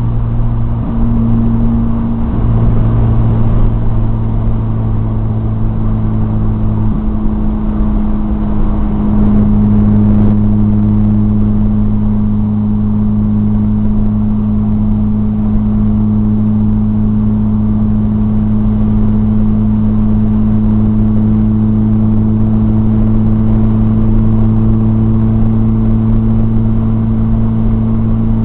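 Supercharged 2.0-litre four-cylinder engine of a 2006 Chevrolet Cobalt SS with a 3-inch exhaust, heard from inside the cabin while driving. The engine note shifts in pitch and loudness a few times in the first ten seconds, then holds a steady drone at cruising speed.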